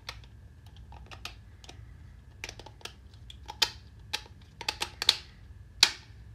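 3D-printed plastic planetary roller-screw parts clicking and clacking as they are turned and fitted by hand: irregular sharp clicks, the loudest few clacks coming in the second half.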